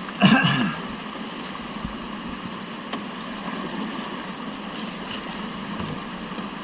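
Steady rush of whitewater from a mountain river rapid. A brief shout cuts in just after the start.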